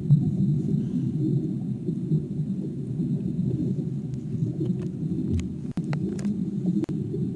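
Whale sound effect: a low, continuous rumbling with a few faint clicks, which stops abruptly at the end.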